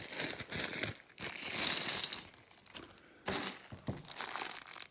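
Clear plastic bank bag of 50p coins crinkling as it is handled, loudest for about a second starting a second in, then rustling again after a short pause, with the coins shifting inside.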